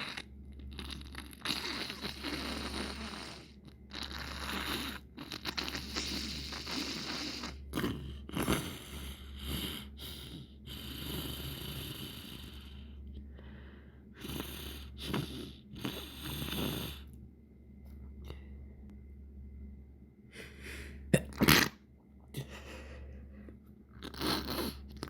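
A person sniffling over and over through a wet, gurgly, congested nose, with one sharp sneeze late on that is the loudest sound.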